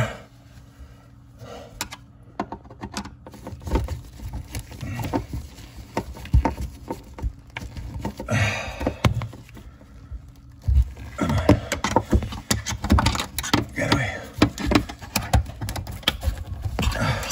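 Screwdriver working the metal mounting clips under a kitchen sink: scattered metallic clicks, taps and knocks as the clip screws are turned and the clips handled, busiest in the second half, with some muffled talk in the background.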